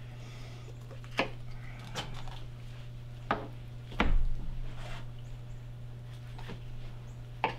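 Knife and venison knocking and tapping on a plastic cutting board while a deer ham is deboned: a handful of separate knocks, the loudest a dull thud about four seconds in, over a steady low hum.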